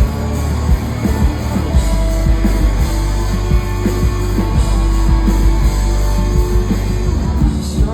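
Indie rock band playing live: electric guitar, bass and drums, loud and driving.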